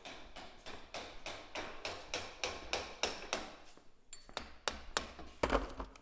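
Light, rapid hammer taps on a car power steering rack, about four a second, then a few sparser, sharper blows near the end.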